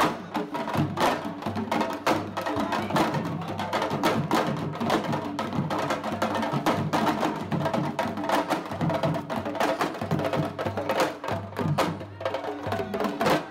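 Live hand drumming by a group of drummers on goblet-shaped drums, a fast, dense rhythm of sharp strikes that carries on without a break.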